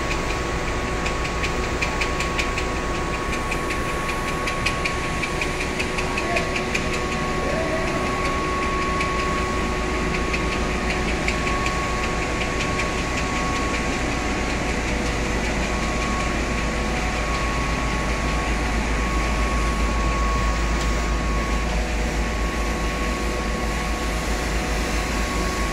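Machinery of a fortified rice extruder production line running together, a steady mechanical drone with a few constant hum tones. A fast, even rattle comes through for about ten seconds in the first half.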